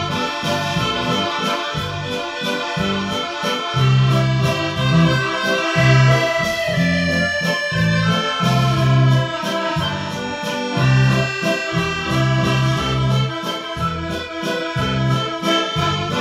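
Instrumental background music: a sustained melody over a pulsing bass line.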